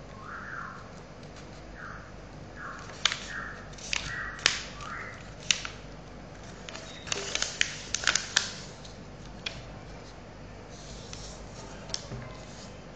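A sheet of paper being folded diagonally and creased by hand: soft sliding swishes in the first few seconds, then a run of sharp crackles and taps, thickest in the middle, as the fold is pressed flat.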